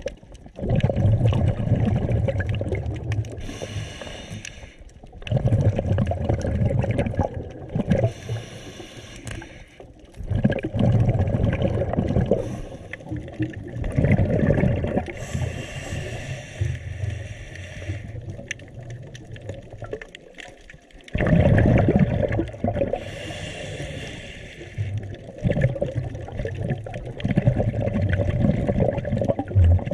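Scuba diver breathing through a regulator underwater: a gurgling rush of exhaled bubbles comes every four to five seconds, with quieter stretches between breaths.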